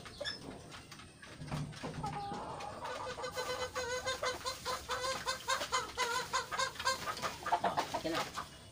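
Chickens clucking in a rapid run of short, repeated calls, from about three seconds in until near the end.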